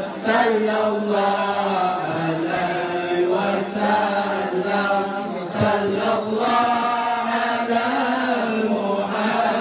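A group of male voices chanting a devotional song in unison, long held notes over a steady low drone.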